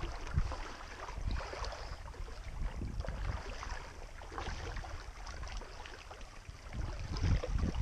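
Creek water sloshing and splashing as someone wades through a shallow stream, with wind rumbling on the microphone.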